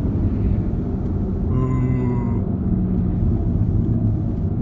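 2008 Saab 9-3 1.9 TiD coasting in neutral with the engine at idle: a steady low hum and rumble from the driver-side front wheel area that follows road speed, not engine speed. It points to a fault in the driveshaft, the driveshaft extension or the gearbox's final drive, which the owner calls metal on metal, like a mechanism with some kind of problem. A brief higher tone with several pitches sounds about one and a half seconds in.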